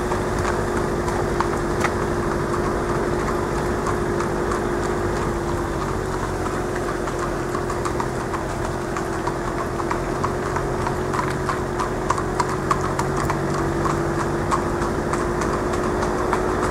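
Hooves of sulky-pulling harness horses clip-clopping at a trot on tarmac, many quick overlapping strikes. A vehicle engine hums steadily underneath.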